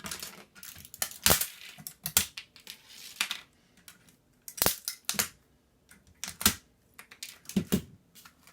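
Irregular sharp plastic and metal clicks, snaps and short scrapes as an old computer keyboard is pried and pulled apart by hand.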